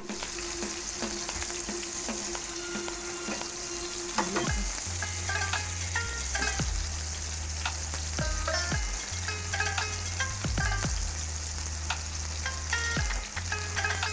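Burger patties frying in a hot pan, with a steady sizzle. Background music with low bass notes comes in about four seconds in.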